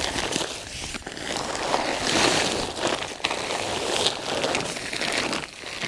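Plastic grow sack rustling and crinkling in waves as it is lifted and shaken empty, with soil spilling out of it.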